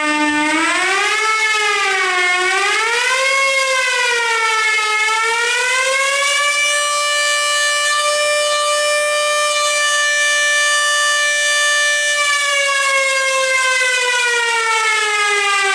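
A 3D-printed 100 mm air-raid-style siren, built as a Jericho siren for a model Stuka, wailing loudly. Its pitch wavers up and down a few times, then holds steady, then falls away near the end as it slows.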